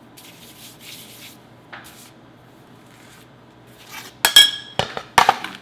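A hand rubbing flour across a metal baking pan, a soft dry swishing. Near the end the pan knocks and rings briefly several times as it is handled and the dough round is laid on it.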